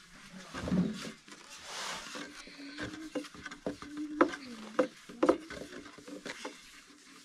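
A long, thin wooden rolling pin rolling lavash dough on a round wooden board, with soft rubbing and scattered sharp wooden clicks and knocks as the pin is pushed and lifted.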